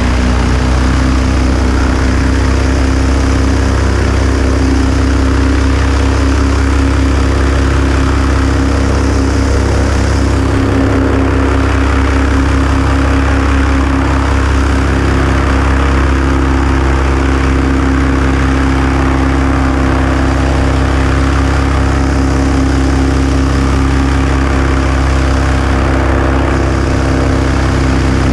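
A small light-aircraft piston engine running steadily at constant speed, heard from on board in flight.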